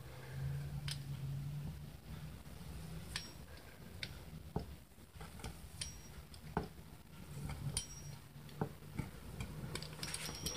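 Pizza cutter rolling through a sheet of dough on a wooden board, giving scattered light clicks and taps as the wheel meets the board, about a dozen, unevenly spaced. A faint low hum runs underneath.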